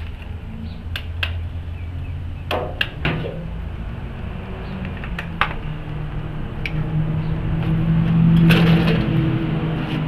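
A steady low machine hum that steps up in pitch about three seconds in and grows louder around eight to nine seconds in, with scattered sharp metallic clicks and clanks.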